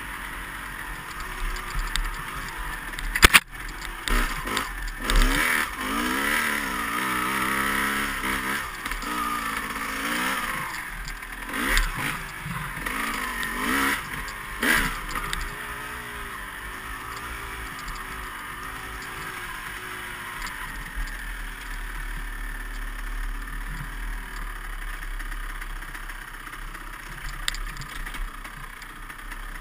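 Dirt bike engine revving up and down again and again while riding a trail, its pitch rising and falling with the throttle, then running steadier and lower for the second half. A single sharp knock about three seconds in.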